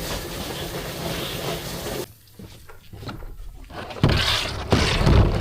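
A steady machine-like running noise that cuts off abruptly about two seconds in, followed by scattered light clicks and two loud thumping handling noises near the end.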